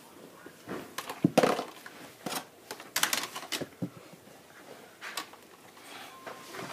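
Irregular clicks and knocks of plastic toy figures being handled and set down on a plastic playset.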